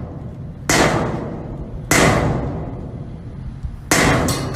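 Three heavy blows against thick glass that holds without breaking, each a sharp knock with a ringing tail that fades over about a second. The blows fall roughly one and two seconds apart.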